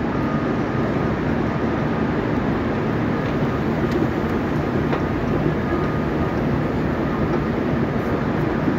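Steady low rumble of trains at a large railway station, with a faint steady whine above it.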